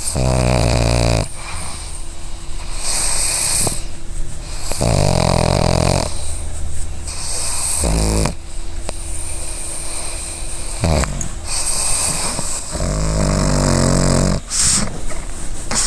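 A pug snoring in its sleep, one breath every few seconds. Each breath alternates between a low, rattling snore and a hissing, wheezy whistle.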